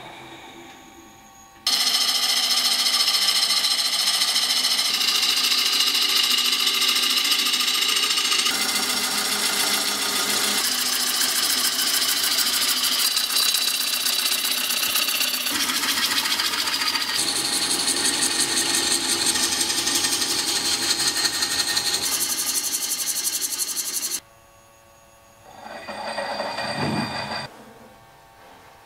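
Bowl gouge cutting a spinning green elm bowl blank on a wood lathe: a loud, dense cutting noise with steady high tones through it, changing abruptly every few seconds at edits. It stops suddenly a few seconds before the end, and a shorter, quieter sound of about two seconds follows.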